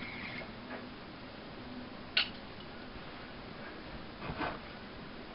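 A butane lighter flicked once with a sharp click about two seconds in, as it is lit for a bong hit, over faint room hiss; a short breathy swell follows at about four seconds.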